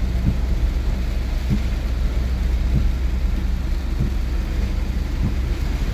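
Inside a car driving on a rain-soaked road in heavy rain: a steady low engine and road drone under a hiss of rain and tyre spray, with a faint knock about every second and a quarter.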